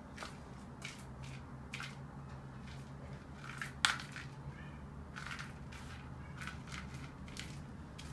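Kittens chewing and crunching on shrimp: small irregular crunches and clicks, with one sharper click about four seconds in.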